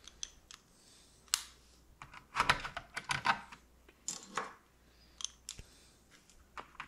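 Clecos being set with cleco pliers to hold an aluminium doubler onto an aluminium spar: small metallic clicks and taps coming in short clusters.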